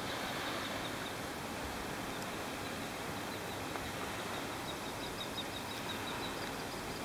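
Steady outdoor hiss of open seaside air, with a quick run of faint, high, evenly spaced chirps from a small animal starting about halfway in.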